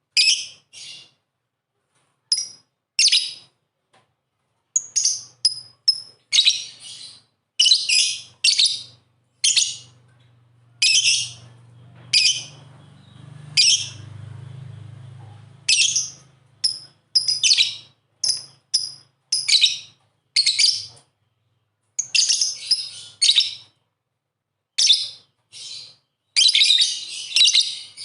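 Lovebirds calling: short, shrill, high chirps in quick irregular bursts, some single and some packed close together. A faint low hum sits underneath for several seconds in the middle.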